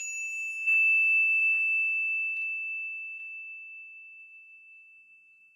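A single high, bell-like ding that rings out and fades slowly, growing louder about half a second in and dying away over about five seconds.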